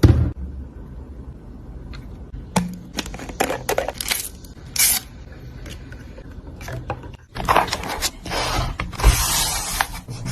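Journal-making handwork: paper and stickers being handled on a journal page, with a few short scrapes and rustles, then a longer stretch of scraping and rustling starting about seven seconds in.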